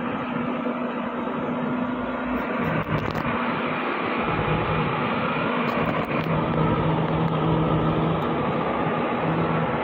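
Loaded log truck's diesel engine labouring steadily as it climbs a steep dirt track in low gear, getting a little louder as it comes closer, with a couple of sharp clacks along the way.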